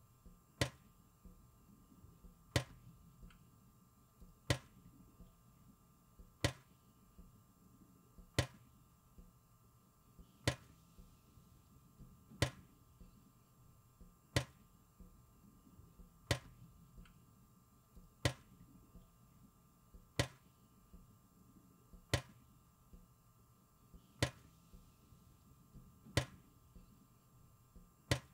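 Water dripping from a kitchen tap into a steel sink: one sharp drop about every two seconds, evenly timed, over a faint steady hum.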